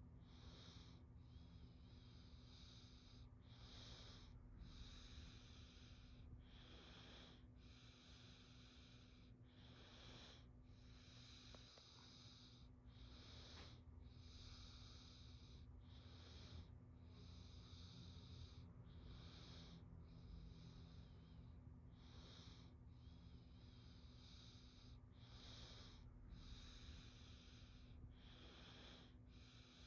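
A young child breathing slowly and evenly in sleep, soft airy in-and-out breaths at a steady calm rhythm, over a faint steady low hum.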